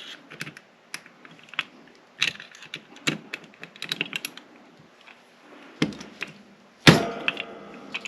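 Small metal lock parts clicking and tapping irregularly as a lock is reassembled by hand. About seven seconds in comes a louder metallic clack that rings briefly.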